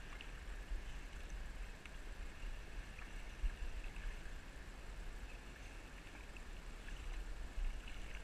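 Steady rush of stream water with an uneven low wind rumble on the microphone and a few faint ticks.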